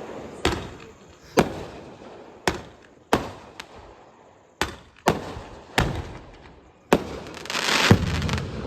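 Fireworks going off: a string of about nine sharp bangs at uneven intervals, each trailing off in a rumbling echo. Near the end a burst of crackling builds up around the loudest bang.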